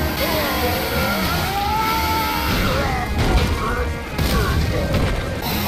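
Dramatic fight soundtrack: music with sweeping, bending tones over heavy booming impacts and low rumble.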